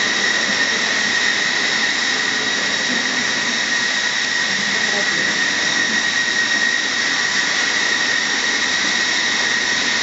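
Steady machine noise with a constant high whine, loud enough to mask the hippo's snorting as it eats hay.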